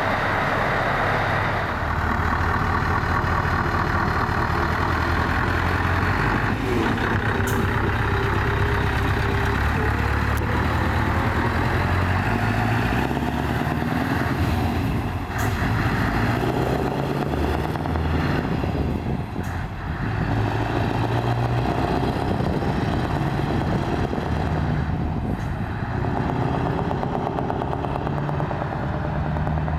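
Scania 164 L 480 tractor unit's V8 diesel engine running as the truck drives past, the engine note shifting up and down in steps.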